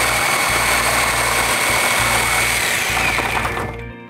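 Reciprocating saw with a wood-and-nail blade cutting through doubled wooden wall studs, running steadily at full speed with a high whine, then winding down and stopping near the end.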